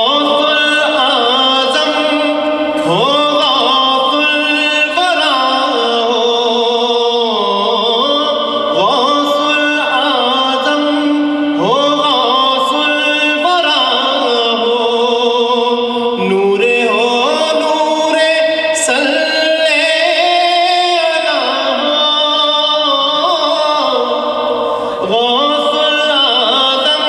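A man singing an Urdu manqabat (a devotional poem) solo in a melodic chanting voice, with long held notes that bend up and down.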